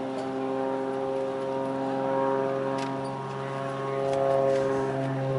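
Engine and propeller of a small aerobatic plane flying overhead: a steady buzzing tone that swells and eases a couple of times.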